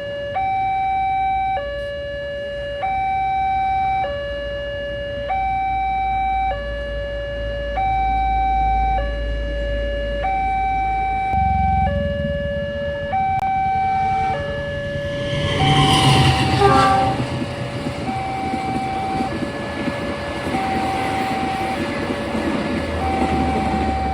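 Railway level-crossing warning alarm sounding a two-tone electronic signal, alternating high and low about every second, to warn that a train is coming. About halfway through, a train's rumble comes in, grows loudest a few seconds later and runs on under the alarm.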